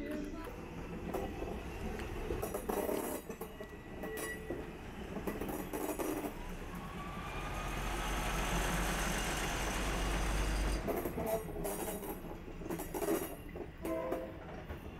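Diesel railcar passing very close, its engine rumble and wheels on the rails growing to their loudest a little past halfway before the low rumble drops away.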